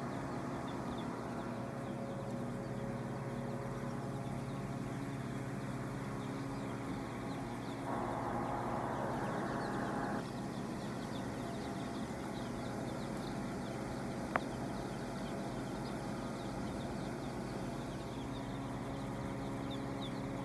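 A large flock of young chicks peeping continuously, many small high chirps overlapping, over a steady low hum. A louder noisy stretch lasts about two seconds just before the middle, and a single sharp click comes about two-thirds of the way through.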